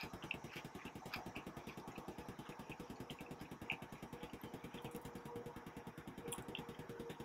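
Faint, steady low throbbing of a running engine or motor, with small scattered clicks of chewing.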